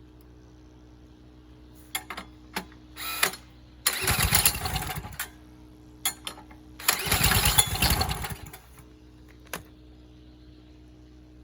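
Small portable generator engine cranked twice in bursts of about a second each, with a few clicks before them and a steady low hum underneath: an attempt to start it on biogas.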